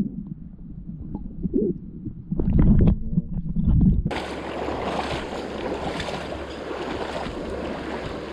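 Muffled low knocks and rumbling, then from about four seconds in the steady rush of flowing river water.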